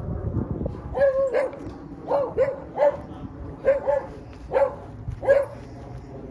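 Beagle barking: a run of short pitched barks, roughly one or two a second, starting about a second in and stopping after about five seconds.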